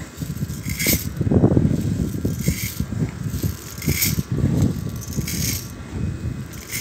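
Dried grain rattling and pouring as a metal cup scoops through a heap of it, loudest in two rushes, about a second in and about four seconds in. A short sharp sound recurs about every second and a half.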